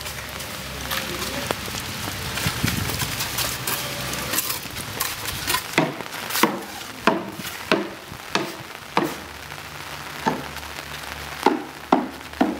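Steady rain hiss, joined about halfway through by a run of sharp slaps, roughly one every two-thirds of a second.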